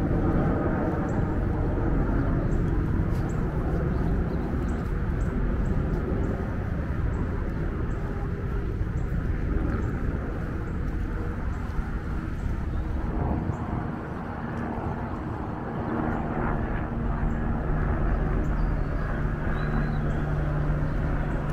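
Outdoor city ambience: a steady low rumble of distant motor traffic, with a steady engine drone joining in the last few seconds.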